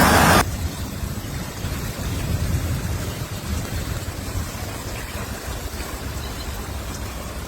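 Wind rumbling and buffeting on the microphone: a steady low noise. A louder sound breaks off abruptly about half a second in.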